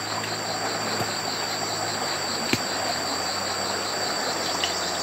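Insects, crickets by their sound, trilling steadily in a high, fast-pulsing tone over a low steady hum, with a couple of faint clicks.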